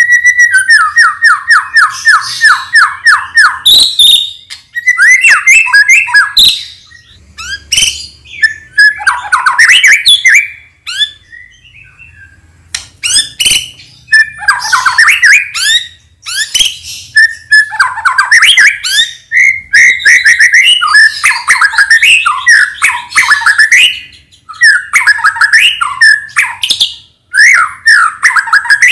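White-rumped shama (murai batu, Medan strain) singing loudly. A held whistle runs into a fast series of repeated notes, then come varied whistled phrases, rapid trills and harsh chattering notes, with a short pause near the middle.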